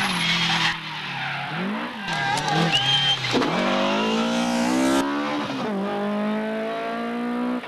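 BMW 3 Series rally car engine revving hard through bends, its pitch dropping and climbing again several times as the driver brakes, shifts and accelerates. A brief tyre squeal comes near the middle.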